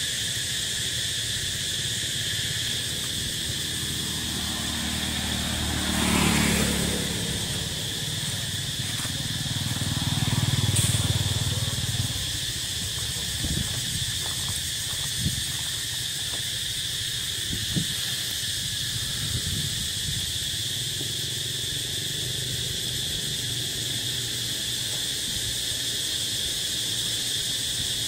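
Steady, high-pitched insect chorus buzzing on several even pitches throughout. A low rumble swells twice in the first twelve seconds, and a few faint clicks follow.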